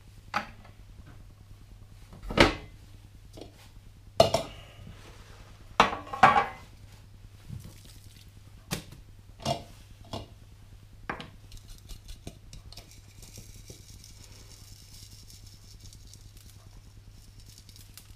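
Kitchenware being handled and set down on a countertop: scattered clinks and knocks, the loudest about two and a half, four and six seconds in, with a faint hiss in the last few seconds.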